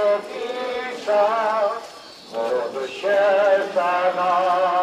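A Catholic procession hymn being sung: a voice with a strong vibrato holds wavering notes in phrases a second or so long, with short breaks between them.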